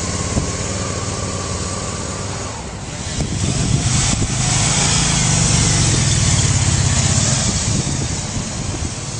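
Can-Am Spyder three-wheeled roadster's V-twin engine running at low speed, with a dip about two and a half seconds in, a brief hiss near four seconds, then a louder, steady engine note as the Spyder pulls away.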